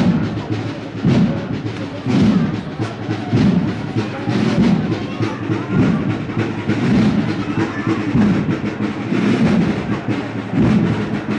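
Holy Week processional band playing a slow march, drums marking a heavy beat about once a second.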